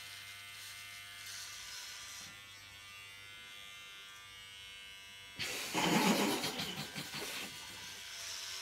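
Electric hair clippers running with a steady buzz as they are worked through long hair. About five seconds in, a much louder, rougher noise lasts around two seconds.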